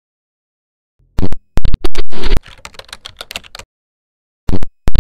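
An editing sound effect of sharp, very loud clicks with a short burst of crackle, reaching clipping level. It starts about a second in, falls to a faint crackle, stops, and a few more clicks come near the end.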